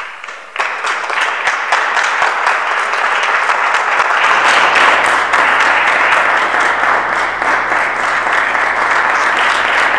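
Audience applauding, starting at once and filling out within the first second into steady clapping.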